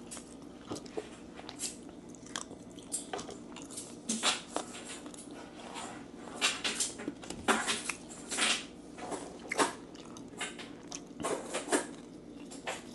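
Close-up biting and chewing of crispy fried fermented chicken wings (nham pik gai): irregular sharp crunches, the loudest coming in the middle of the stretch.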